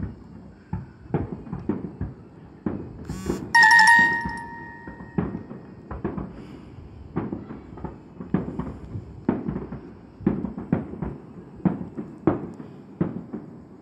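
Distant fireworks going off: many dull thuds at irregular intervals, roughly one or two a second. About three and a half seconds in, a loud bell-like chime rings out over them and fades within about a second and a half.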